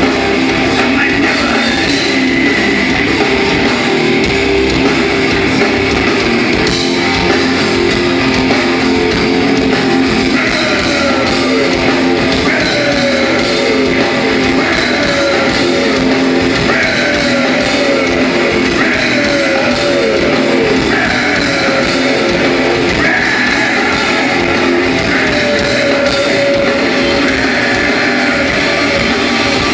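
Live alternative-metal band playing loud, distorted electric guitars with bass and drums, heard from the crowd. From about a third of the way in, a guitar figure repeatedly slides down in pitch.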